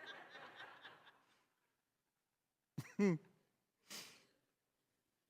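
Congregation laughing softly for about a second and a half, then a man's short falling-pitch vocal sound and a breathy sigh.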